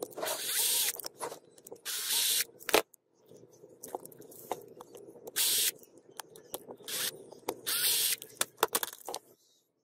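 Power drill with a screwdriver bit running in short bursts on the screws of a jigsaw's plastic motor housing, five runs of under a second each. Sharp clicks and rattles of the bit and housing come between the runs.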